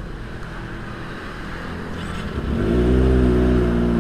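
Kawasaki Ninja ZX-25R's 250 cc inline-four running at idle through an aftermarket Yakuza R7 exhaust. About two and a half seconds in, the revs rise and hold at a steady, louder low-RPM note.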